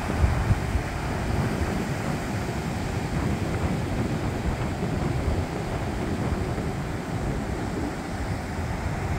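Ocean surf breaking and washing up the beach, with wind buffeting the microphone in a steady, rumbling noise.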